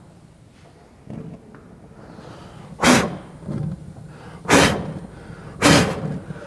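A person blowing hard at a lit gas grill burner to put out its flame: three sharp puffs of breath in the second half.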